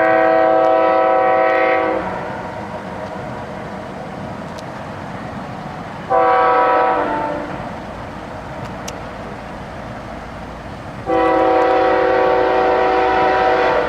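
Train horn sounding three blasts (long, short, then long), a chord of several steady tones, over the steady rumble of the approaching train.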